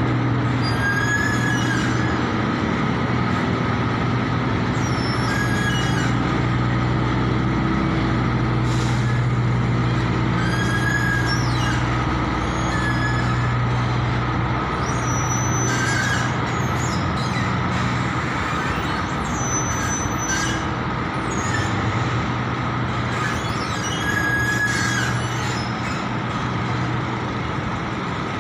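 A boat's engine running steadily, a low drone that holds level throughout. Short high chirps and squeaks come and go every few seconds over it.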